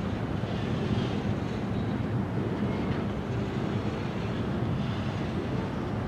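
Freight train of covered hopper cars rolling slowly past, a steady rumble of steel wheels on the rails.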